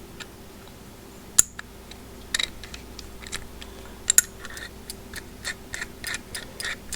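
A bi-metal hole saw being threaded by hand onto its arbor. There are a few sharp metal clicks, the loudest about a second and a half in, then a run of short scraping ticks, about three a second, as the threads turn.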